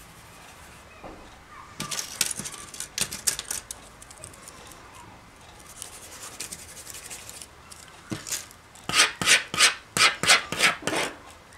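Wooden sticks and a pencil scraping and rubbing across a sheet of paper. The strokes come in short bursts, with the loudest run near the end at about three quick pencil strokes a second.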